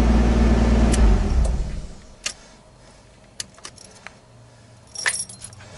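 A loud low rumble for the first second and a half, then metal hand tools clinking and rattling a few times as they are gathered up and put away.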